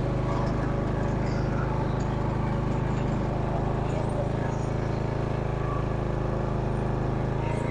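Small engine of a Simplicity rear-engine riding mower running steadily at an even speed.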